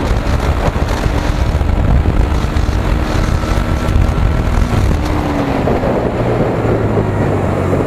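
Bajaj Pulsar NS 125's single-cylinder engine at high revs under full-throttle acceleration, up to its rev limiter in fourth gear. About five seconds in, the revs fall away and the engine settles to a lower, steady note.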